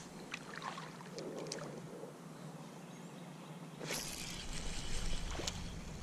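Water sloshing and lapping around a small boat, with a few faint clicks in the first seconds. A louder rushing noise sets in about four seconds in.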